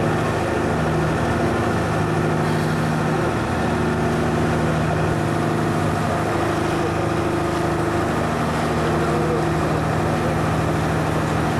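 Engine of a cruise ship's tender boat running steadily while under way, an even drone that does not change.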